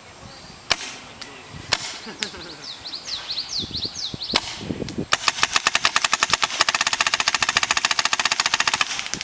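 Paintball markers firing at a chronograph: a few single shots, then a Tippmann TM7 paintball marker fires a rapid full-auto stream of about 15 shots a second for roughly four seconds.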